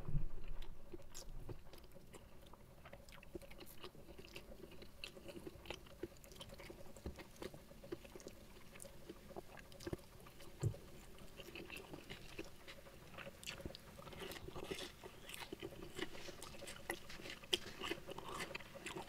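A person chewing and biting a mouthful of rice with tripe and raw watercress, with soft wet smacking, crunching and small mouth clicks. The mouth clicks grow busier and louder in the second half.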